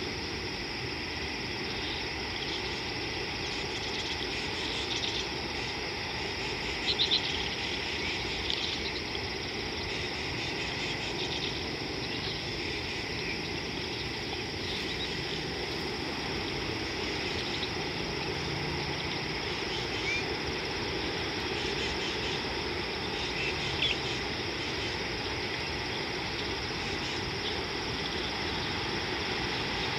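Outdoor bush ambience: a steady hiss and low hum, with faint high trills and a few short chirps; a brief cluster of clicks about seven seconds in.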